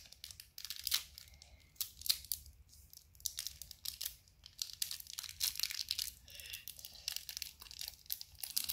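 A small shiny candy wrapper crinkling and tearing as it is picked open by hand, in irregular crackles.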